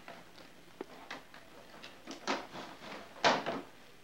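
A present being unwrapped: a few short bursts of paper and box rustling, the loudest about three seconds in.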